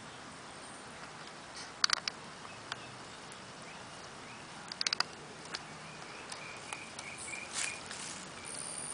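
A squeaky tennis ball squeaking in short, quick bursts as a puppy chews on it: a cluster of squeaks about two seconds in and another about five seconds in, over a steady outdoor hiss. A run of short, faint high chirps follows near the end.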